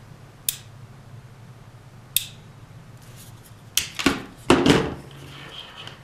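Hand ratcheting crimper working a terminal onto a wire: single sharp clicks about half a second and two seconds in, then a louder cluster of clicks and clacks around four seconds in as the tool is squeezed through its ratchet stages.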